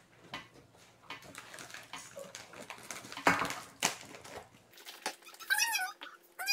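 Crisp biscuit being bitten and chewed: small clicks and two sharp crunches in the middle. Near the end comes a short, high, wavering whine.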